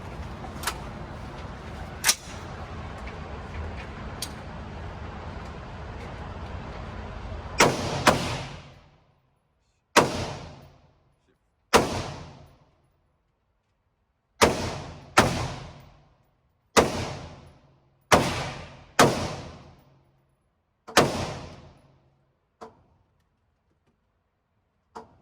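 About ten single gunshots fired one at a time at uneven gaps, each with a short echoing tail, the first two close together. A few light clicks come before them.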